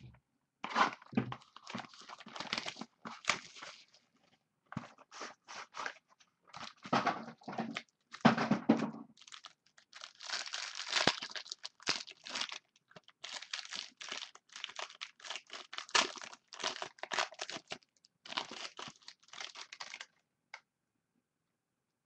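Trading card pack wrappers being torn open and crinkled by hand, with the cards handled: a long run of irregular rustles and rips that stops about two seconds before the end.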